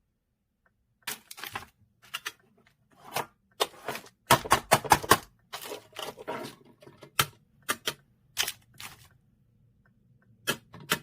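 Close-up handling noises: a run of sharp taps, clicks and short crinkles, thickest and loudest from about four to six seconds in, then a few scattered clicks.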